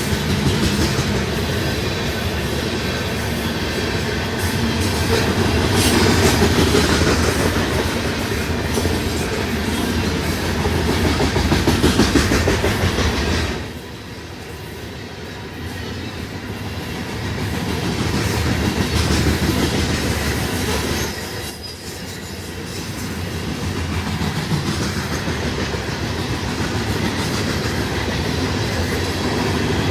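Freight train passing close by at speed, its cars rumbling and wheels clattering over the rail. The sound drops sharply twice, about halfway through and again some eight seconds later, then builds back up.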